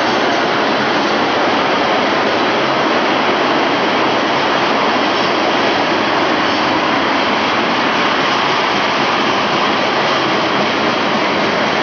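A freight train of tank cars rolling steadily past, a loud, even noise of steel wheels on the rails.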